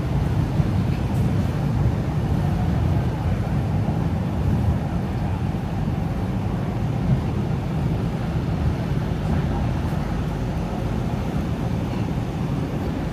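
Steady low rumble of city background noise, the hum of traffic and machinery around a street.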